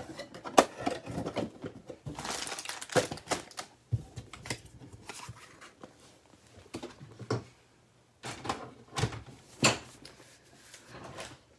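Trading-card packs and their cardboard box being handled and stacked: scattered light taps and clicks, with a stretch of plastic wrapper crinkling about two to three seconds in.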